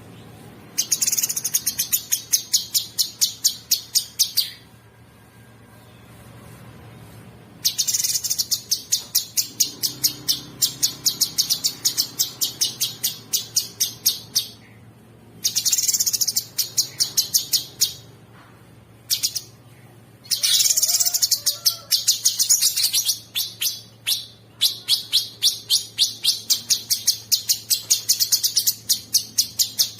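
Cucak sungkok singing in rough, rapid chattering phrases ('ngebren'): fast strings of about five sharp high notes a second, each phrase lasting a few seconds, with short pauses between.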